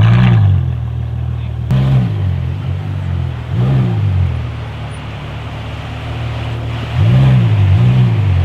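Ferrari F12berlinetta's V12 through a Capristo exhaust, idling and blipped in short revs, about five in all. Each rises and falls in pitch, with two in quick succession near the end.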